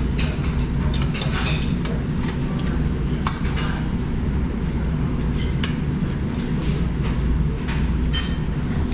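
Forks and spoons clinking against ceramic plates and bowls as people eat: several short sharp clinks scattered through, over a steady low rumble.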